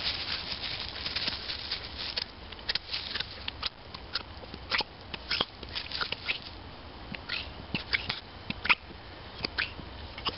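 Wire-haired dachshund digging in soil and then rummaging through dry fallen leaves: irregular scratching and crackling, densest in the first couple of seconds and more scattered after.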